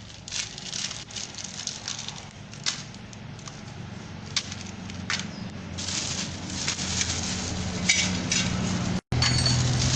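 Metal tools and engine parts clinking and knocking irregularly during work on a scooter engine, over a low hum that grows louder about six seconds in.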